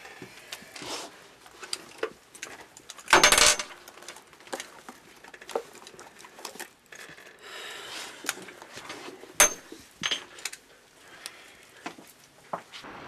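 A handbag being handled and rummaged through on a counter: scattered small clicks, clinks and rustles, with one loud burst lasting under half a second about three seconds in and a sharp knock about nine seconds in.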